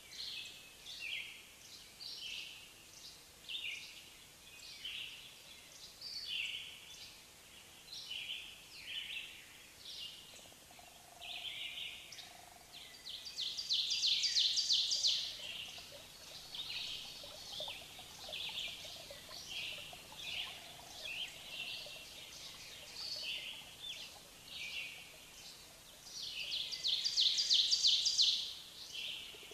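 A bird chirping over and over, about once a second, with two longer, louder rapid trills, one about halfway through and one near the end.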